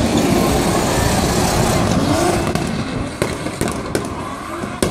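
Nissan Silvia drift car running hard at high revs through a drift, its rear tyres spinning into smoke, with the engine pitch rising and falling. From about three seconds in comes a rapid string of sharp pops.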